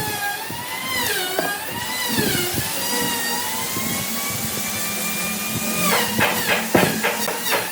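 Electric power tool motor whining at high speed, its pitch dipping and recovering as it bites into the wood. A burst of sharp knocks and rattles comes near the end.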